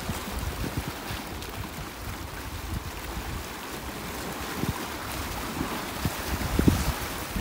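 Wind buffeting the microphone in irregular low gusts, stronger near the end, over small waves washing against the rocks of a seawall.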